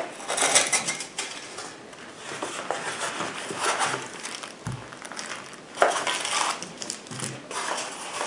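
Cardboard box lid lifted off and the box's contents handled: rustling of cardboard and packing with scattered light taps and clatter, a low thump a little under five seconds in and a sharper knock about a second later.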